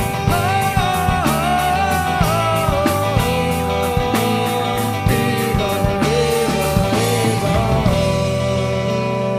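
Rock band music: a gliding vocal melody over guitar and sustained chords, with a steady drum and cymbal beat that drops away about eight seconds in, leaving held chords.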